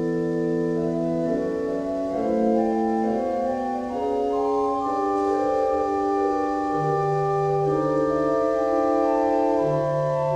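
Organ playing slow, sustained chords, the held notes moving to new chords every second or two.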